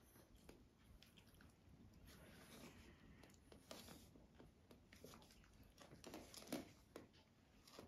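Faint scuffling and rustling of young puppies clambering over their mother and mouthing each other on the bedding, with scattered soft clicks and chewing-like noises and a brief louder scuffle about six and a half seconds in.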